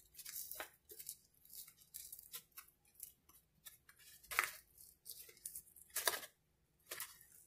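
Broken pieces of gypsum drywall core being pulled off the paper facing by hand: a run of short crackling snaps and paper tears, the loudest about four and six seconds in.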